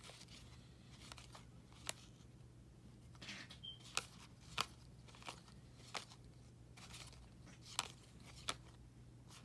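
Trading cards being handled and flipped through: faint paper rustling with about six sharp clicks and snaps scattered through, over a low steady hum.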